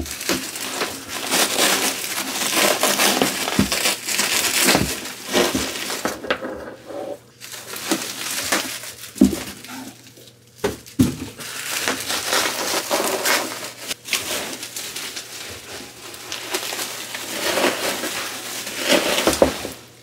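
Plastic bubble wrap crinkling and crackling as it is handled and pulled off a boxed computer, with a few sharper cracks and brief pauses.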